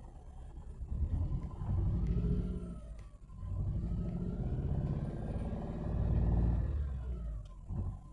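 Mercedes-Benz car engine being revved twice, rising and falling, the second rev longer and louder than the first.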